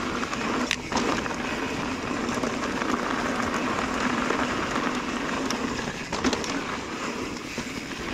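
Mountain bike tyres rolling over a gravel road, a steady crunching rattle of loose stones and bike parts, with a few sharp clicks.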